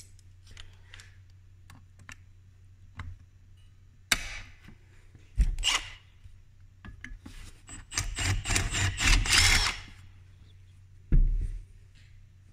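Locking pliers (vise grips) being handled and clamped onto an aluminium awning rail and a reinforcing metal plate: scattered metallic clicks and knocks, a sharp knock about four seconds in and another a second later, then a dense run of clanks and rattles from about eight to ten seconds in.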